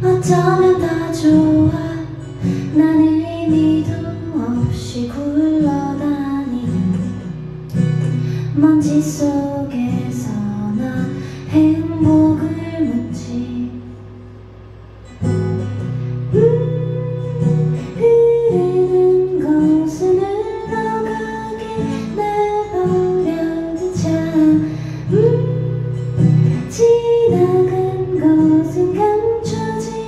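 A woman singing to her own acoustic guitar, played live through a microphone. About halfway through the music drops away for a moment, then the guitar and voice come back in.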